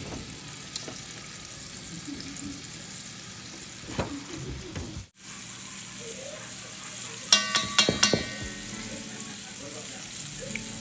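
Food sizzling in a hot pan, breaking off for a moment about five seconds in. A quick run of metallic clinks of a utensil against the pan comes about seven to eight seconds in.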